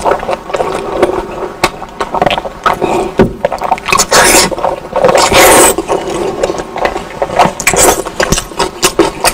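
Close-miked eating sounds: wet chewing and slurping with many small clicks and smacks, with two louder slurps about four and five and a half seconds in.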